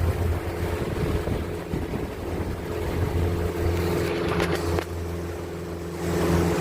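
Boat motor running steadily with a low hum, with wind buffeting the microphone. There are a few brief clicks about four seconds in.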